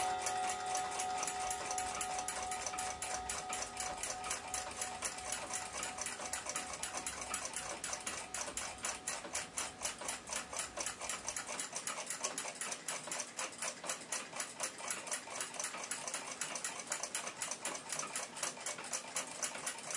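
Junghans A42 chiming bracket clock ticking in a quick, even rhythm. Its chime rods' last notes fade away over the first few seconds.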